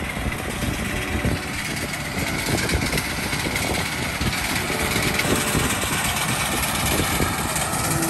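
A small engine running steadily, with gusts of wind on the microphone.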